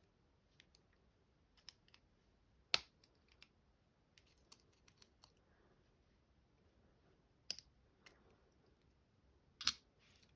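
Scattered small metallic clicks and ticks of a tool working a lock's retaining spring clip and core, with three louder sharp clicks, about three seconds in, near seven and a half seconds, and just before the end.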